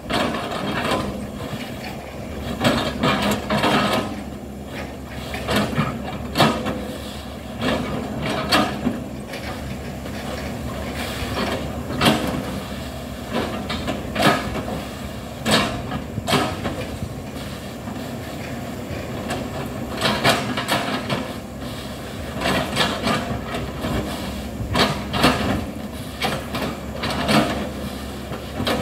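Hitachi hydraulic excavator's diesel engine running steadily, with frequent sharp clanks and knocks of metal on metal every second or two.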